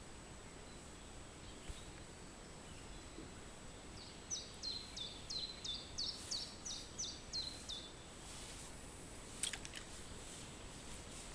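A songbird sings one phrase of about a dozen quick high notes, each sliding down in pitch, over three to four seconds. A few sharp clicks follow near the end.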